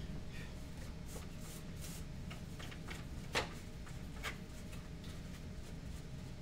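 Quiet room with a steady low hum, broken by a few short, light clicks and handling noises; the sharpest click comes about three and a half seconds in.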